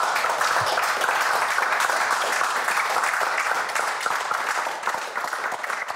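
A small group of people applauding, a steady patter of hand claps that eases slightly near the end.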